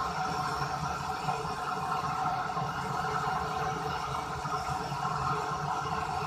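Gas torch flame burning steadily, a constant rushing hiss with a low hum underneath.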